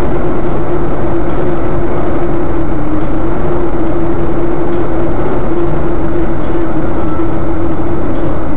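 Loud, steady engine and road noise of a moving car, heard from inside the cabin through a dashcam's microphone, with a constant low hum.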